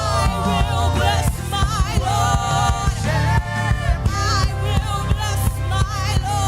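Gospel worship music: a voice sings a wavering melody over bass and a steady drum beat.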